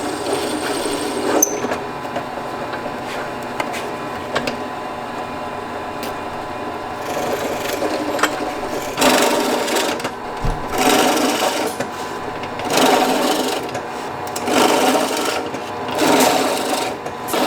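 Electric drill spinning a small-block Chevy's oil pump to prime the engine, running steadily with louder surges five times in the second half.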